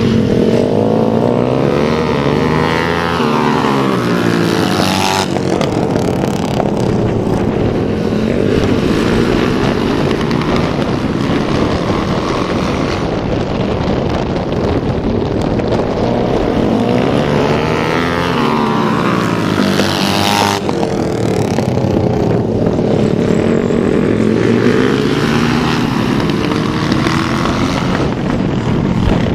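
Dirt-track racing motorcycles running laps of a small oval, engines revving up and down through the turns. Twice the bikes pass close by with a sudden drop in pitch, a few seconds in and again about two-thirds of the way through.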